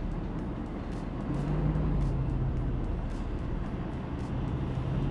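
Pickup truck engine running steadily at low revs as the truck reverses slowly with a fifth-wheel trailer in tow; a continuous low hum and rumble.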